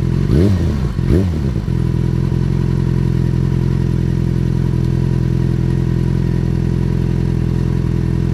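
Motorcycle engine revved in two quick throttle blips, then settling into a steady, even running note as the bike stands still.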